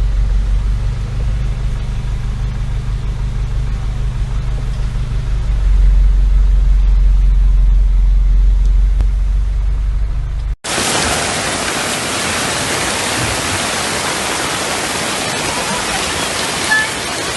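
A vehicle's low, steady engine rumble, then, after a sudden cut about ten seconds in, a loud, even rush of water.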